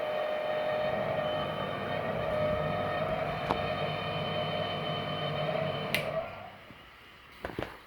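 Oil heating burner running with a steady hum and a high whine. It stops shortly after a click about six seconds in, and a few light knocks follow near the end.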